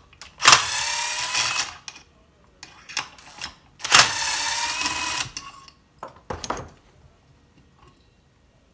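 Cordless power driver running twice, about a second and a half each time, backing out the muffler fasteners on a Stihl chainsaw, with a few clicks and knocks of handling in between and after.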